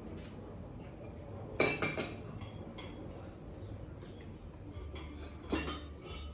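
Dishes clinking: two sharp ringing knocks, about a second and a half in and again near the end, over a low steady hum.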